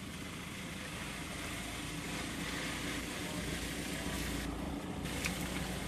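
Steady low rumble and hiss of a vehicle engine running, growing a little louder after about three seconds.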